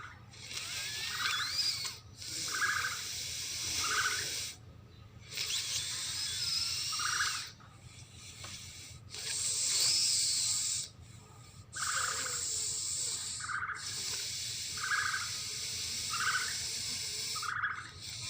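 Sound-effect call for the extinct elephant bird: short hooting notes repeated about every second and a half, over a high hissing rasp that starts and stops abruptly in sections.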